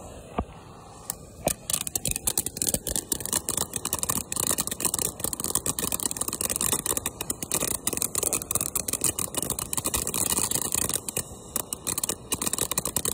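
Ground fountain firework spraying sparks, hissing with dense, rapid crackling. It starts with a few scattered pops, builds to continuous crackling about a second and a half in, and cuts off suddenly near the end.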